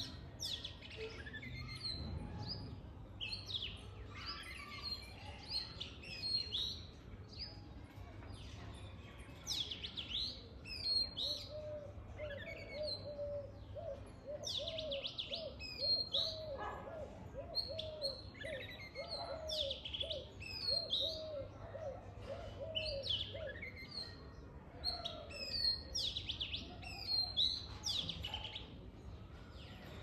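Many birds chirping and calling from a leafy tree, with short high chirps overlapping throughout. In the middle, for about ten seconds, a lower note repeats about twice a second. A faint steady low hum lies beneath.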